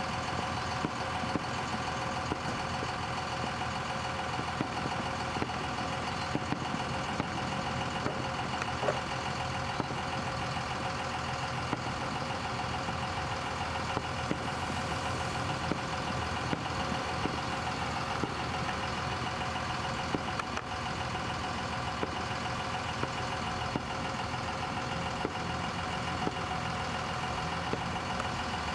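A steady engine-like hum holding several fixed tones, with faint scattered pops.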